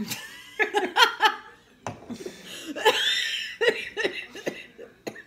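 A woman laughing loudly in repeated short bursts, with a longer breathy laugh near the middle.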